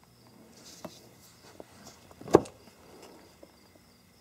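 Handling of a test light bulb in its socket and leads: a few light clicks, then one sharp knock a little over two seconds in.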